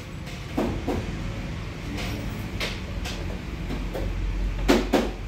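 Laptop plastic top case being handled and unclipped from its base, giving a string of sharp plastic clicks and knocks, the loudest a quick pair near the end, over a steady low hum.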